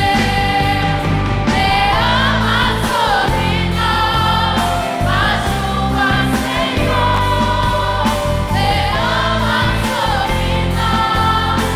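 Youth choir singing a gospel song with instrumental accompaniment, held sustained notes and a steady bass underneath.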